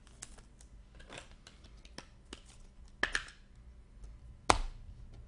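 Trading cards being handled and flipped through: small clicks and rustles of card stock, with a short rustle about three seconds in and one sharp snap about four and a half seconds in.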